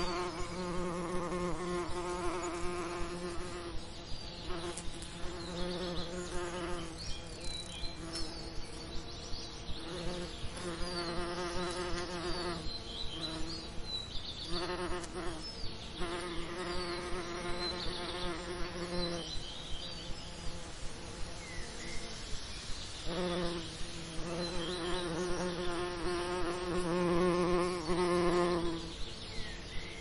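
Bees buzzing, a wavering drone that swells and fades as they pass close, coming and going several times, with a lull of a few seconds past the middle.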